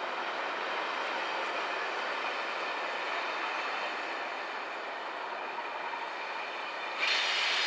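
Network Rail test train coaches rolling slowly along the rails with a steady rumbling wheel noise. About seven seconds in, a sudden, louder high-pitched screech sets in, typical of wheels squealing on the rails.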